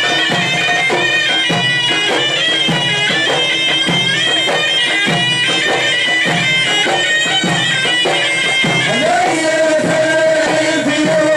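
Traditional folk music: large frame drums beating a steady rhythm under a loud, reedy wind instrument carrying the melody. Near the end a new held, wavering melodic line comes in.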